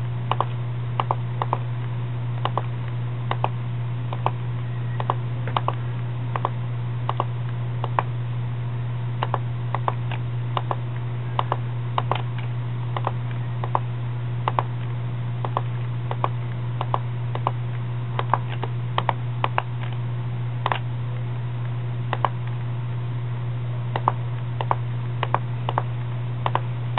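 Computer mouse clicking at an irregular pace, about one or two sharp clicks a second, each click setting a point of a polygonal lasso selection. A steady low hum runs underneath.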